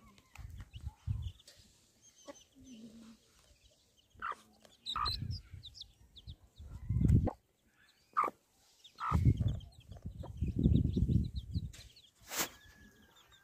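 Hen clucking among her brood of chicks, which peep in short high chirps throughout. Several loud bursts of low rumble on the microphone partly cover the calls, and there is one sharp click near the end.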